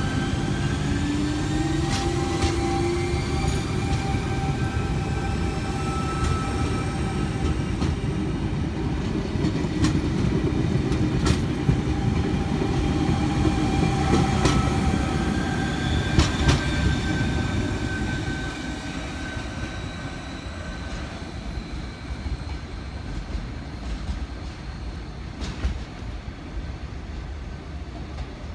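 Eight-car V set double-deck electric intercity train pulling out and accelerating away: a steady rumble with a rising motor whine in the first seconds and scattered clicks of the wheels over rail joints. The sound fades from about two-thirds of the way through as the train leaves.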